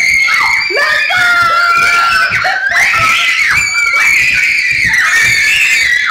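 Girls screaming and squealing with excitement, several high-pitched voices overlapping, with laughter mixed in.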